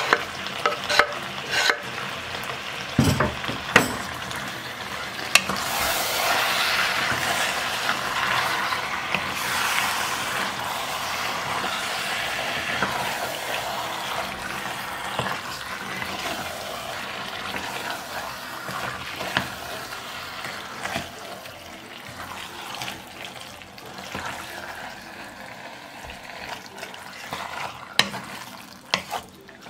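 Beef tripe and fresh spinach sizzling in tomato sauce in a pot while a wooden spatula stirs, with knocks and scrapes of the spatula against the pot. A few sharp knocks come first; the sizzle swells about five seconds in and then slowly dies down, with more knocks near the end.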